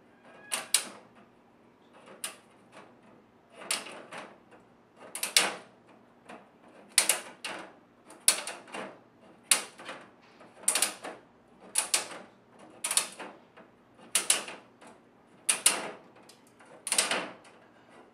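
Plastic egg crate grid being snapped apart with pliers: a series of sharp cracks, roughly one every second or so, some in quick pairs, as the grid is broken down to size.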